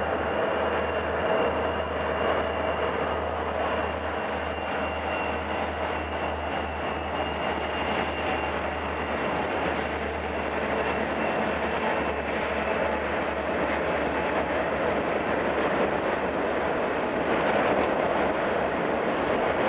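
Diesel-electric freight locomotives passing close by, their engines giving a steady low drone that fades about twelve seconds in. Behind them, steel bulkhead flatcars roll past with a continuous rumble of wheels on rail.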